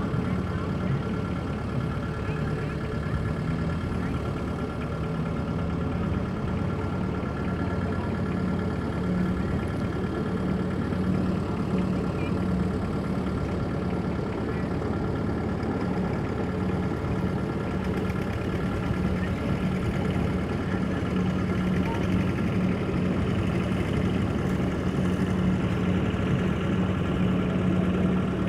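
Kubota DC-70 combine harvester running steadily, its diesel engine holding a constant pitch.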